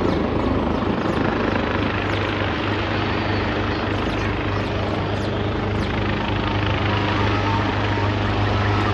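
Helicopter landing close by: a loud, steady noise over a low hum, with a steady tone that grows stronger about halfway through.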